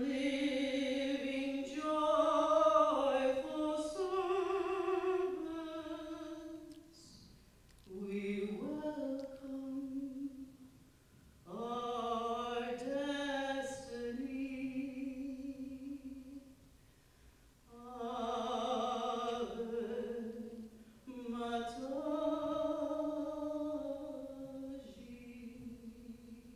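A woman singing her own devotional poem unaccompanied into a microphone: a slow line of long held notes with vibrato, in phrases a few seconds long with short breaths between. The last note fades away near the end.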